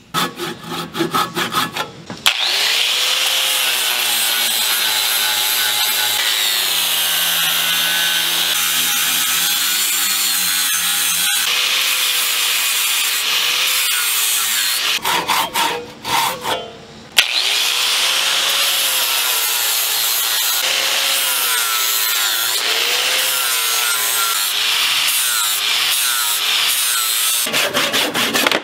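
Angle grinder with an abrasive disc grinding down a laminated zebrawood axe handle blank. Its motor pitch sags and rises as the disc bites into the wood. It stops briefly a little past the middle, then starts grinding again about two seconds later.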